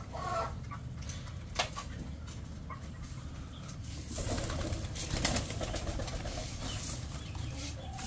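Pigeons cooing, with a few wing flaps and light knocks over a steady low rumble.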